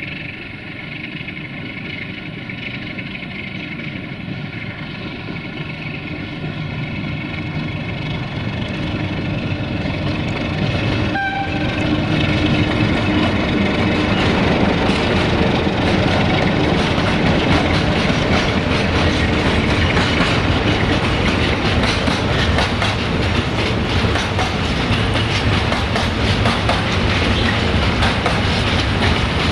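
060-DA (LDE2100) diesel-electric locomotive with its Sulzer engine running as it hauls a container freight train past, the sound growing louder over the first dozen seconds. After that comes the steady, loud rolling clatter of container wagons passing close by on the track.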